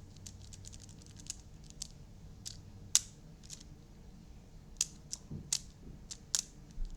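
Bike-chain fidget toy being twisted and flexed by hand, its links giving irregular sharp clicks, with one louder snap about three seconds in.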